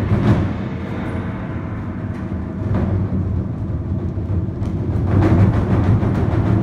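A children's drum ensemble playing a fast, continuous rolling beat on big Chinese drums, swelling louder and brighter about five seconds in.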